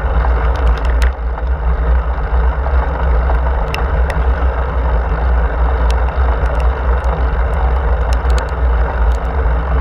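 Wind rushing over a handlebar-mounted camera's microphone as a road bike rolls along a wet paved path: a steady, heavy low rumble with tyre hiss and scattered small clicks and rattles.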